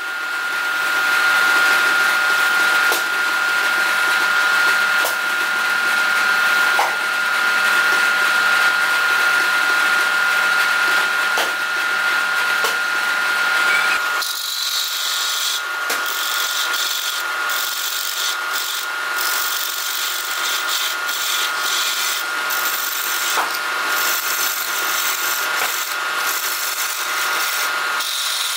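Wood lathe running with a steady motor whine while sandpaper is held against the spinning wooden piece, a rubbing hiss. About halfway through, the sound switches abruptly to a hand turning tool cutting into the spinning wood: a brighter, scratchy hiss that breaks off briefly now and then.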